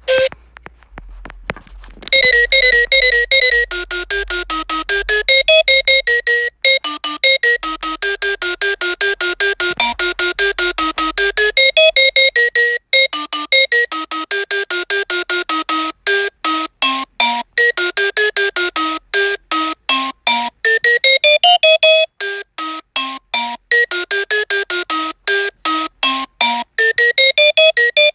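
Reizen talking clock's built-in electronic alarm melody: a fast string of short, clean synthesized beeps stepping up and down in a tune. From about halfway through, the notes become more clipped and spaced apart.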